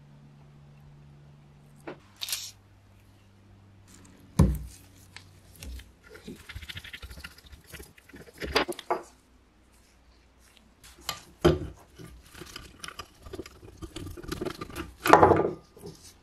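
Rusty metal parts of an old hand drill being handled and set down on a wooden workbench: scattered sharp knocks and clinks with scraping and rubbing between them, the loudest knocks about four seconds in and near the end.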